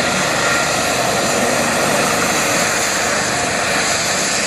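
Eurocopter EC135 helicopter's twin turbine engines and rotor running, a loud, steady rush of noise with no breaks.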